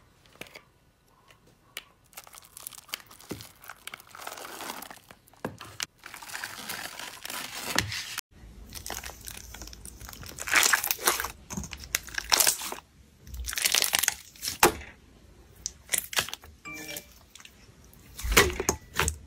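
Hands working a clear slime packed with small beads, giving a fine crackling crunch. About eight seconds in, this changes to a thick white slime being pressed and stretched, with repeated loud bursts of crackly popping.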